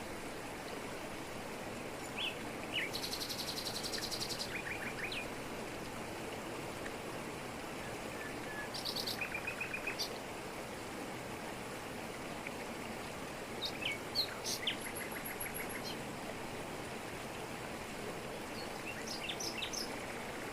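Waterfall rushing steadily in a tropical forest, with birds calling over it in short bouts of chirps and quick trills, four times.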